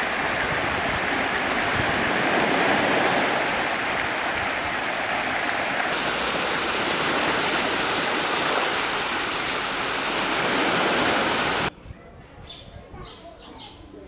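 Steady loud rush of flowing water, which cuts off suddenly near the end, leaving faint chirping.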